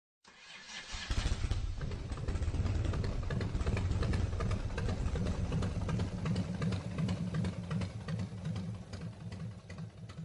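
Motorcycle engine running with a steady, fast beat, fading in over the first second.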